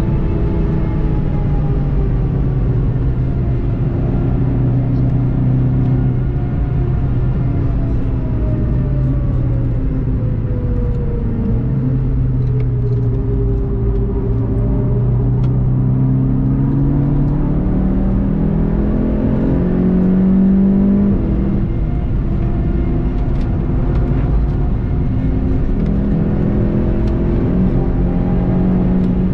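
Volkswagen Golf 7.5 GTI TCR's 2.0-litre turbocharged four-cylinder engine, heard from inside the car at racing speed. For about the first half its pitch falls steadily as the car slows hard from about 200 km/h. It then climbs again through gear changes as the car accelerates, with road and wind noise throughout.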